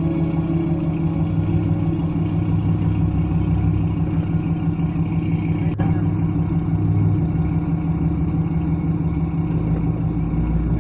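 Boat engine running steadily, a low, even drone, with a single faint click about six seconds in.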